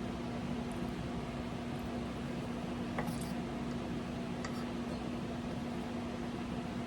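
A steady low machine hum with room noise, and two faint small clicks about three and four and a half seconds in.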